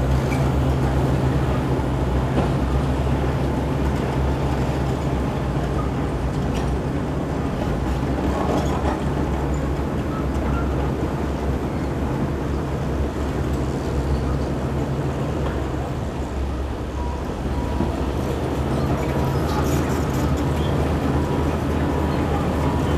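Heavy diesel machinery running steadily: a crawler bulldozer's engine close by, with excavator and dump-truck engines behind it. There are a few short clanks of rock and metal, and a faint repeating beep in the last few seconds.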